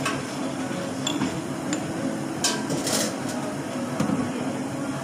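Clinks and knocks of a glass being handled at an espresso machine, over a steady low hum, with two short hissing bursts about halfway through.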